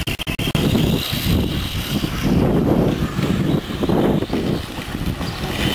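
Radio-controlled electric monster truck running over gravel, its motor whining thinly over an uneven low rumble, with a few quick crackles at the very start.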